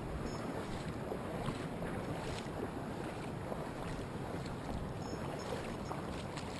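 Steady rush of flowing mountain-stream water.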